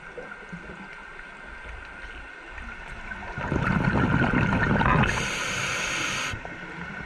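Underwater, a scuba diver exhales through the regulator: a loud gurgling rush of bubbles lasting about a second and a half, midway through, over a steady low hiss.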